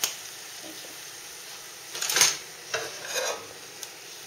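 A buttered cheese sandwich sizzles steadily in a nonstick frying pan over a gas flame. There is a click at the start and a few short scrapes about two seconds in, the loudest of them at that point.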